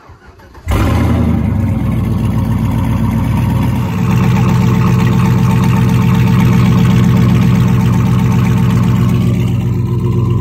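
Pickup truck engine starting abruptly under a second in, then running steadily at idle.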